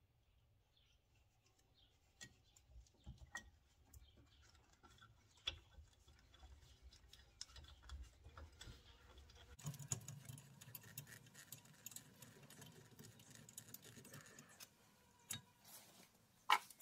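Faint, irregular clicks and light metal taps from hands handling a rear brake caliper and its glider pins. One sharper click near the end is the loudest sound.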